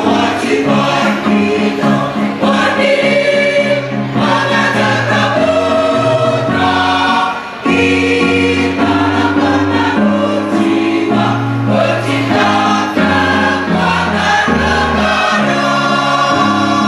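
Mixed choir singing in full voice, holding sustained chords phrase after phrase, with a brief break between phrases about seven and a half seconds in.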